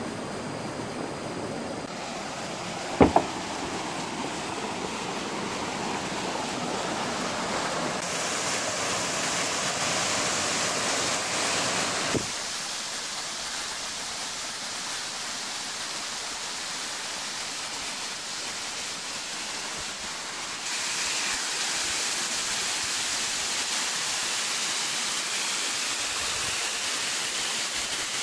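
Waterfall rushing, a steady hiss of falling water whose tone shifts abruptly several times. A sharp double knock about three seconds in.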